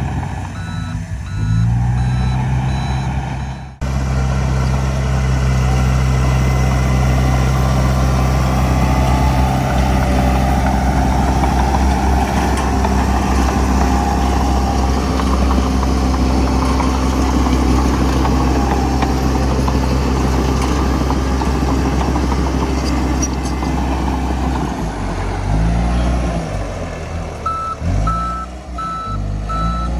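A heavy diesel engine running hard under load. Its pitch rises early on, holds steady for a long stretch, then drops and climbs several times near the end. A reversing alarm beeps at the start and again near the end, with a sudden break in the sound about four seconds in.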